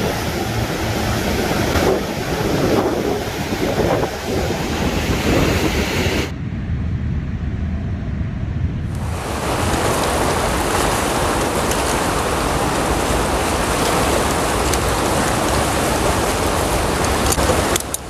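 Steady rush of a river in spring flood, whitewater pouring over a low concrete diversion weir. About six seconds in the sound drops to a muffled hush for a couple of seconds, then returns as a steady rush of the swollen river, with a few faint clicks near the end.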